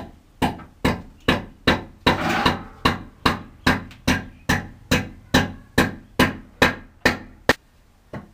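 Steady hammer blows, about two a second, nailing a small wooden support block to the wall. After a short pause, a single last blow comes near the end.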